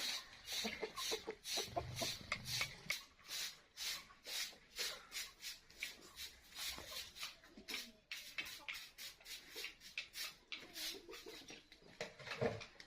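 Aseel chickens: a long run of short scratchy rustles, about three a second, with a few low clucks in the first few seconds and again near the end.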